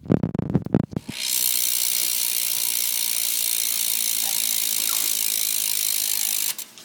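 Mission React cassette hub on a BMX rear wheel freewheeling: a few knocks as the wheel is set spinning, then a loud, steady fast buzz of pawl clicks for about five seconds that stops suddenly near the end.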